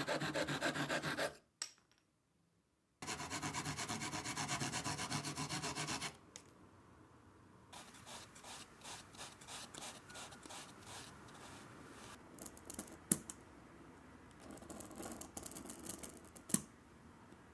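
A fine-toothed hobby saw cutting balsa wood in rapid, even back-and-forth strokes, in two loud runs with a short pause between. Then quieter rubbing strokes as a sanding block smooths the sawn balsa edge, and near the end a scribing pen scratches a line into thin aluminium sheet along a metal ruler, with a couple of sharp clicks.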